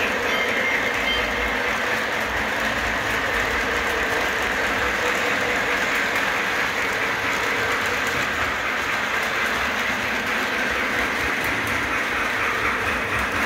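Model freight train rolling past on its track: a steady running noise of wheels on rail with a faint steady hum.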